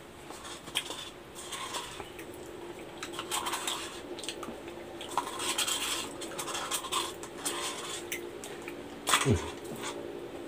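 Plastic spoon scraping and tapping in a paper sundae cup of soft-serve ice cream, with close-up eating sounds. Near the end comes one louder short sound that falls in pitch.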